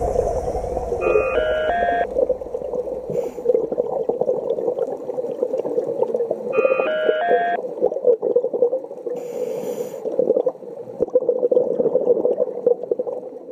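Muffled underwater noise with steady crackling. Twice, about five seconds apart, a short three-note electronic beep steps up in pitch, and there are a couple of brief hissing bursts.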